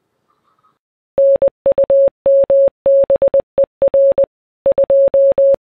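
Morse code played as a single steady beep tone. The dots and dashes start about a second in and fall into seven letter groups that spell out 'NUMBER 2'.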